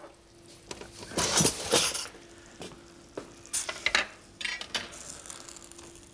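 Metal fork scraping and clinking against a ceramic baking dish as grilled chicken fillets are lifted out, in a few short bursts.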